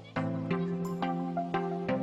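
Outro music: pitched chords in a steady rhythm, a new chord struck about every half second.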